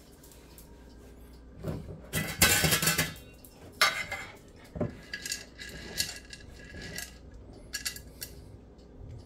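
Treats being fetched: about two seconds in, a second of loud rattling and rustling from a treat container being handled, followed by scattered light clicks and clinks.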